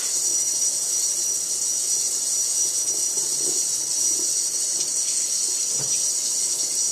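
Kitchen faucet's pull-down spray head running steadily, its streams of water hissing over wet hair and into the sink.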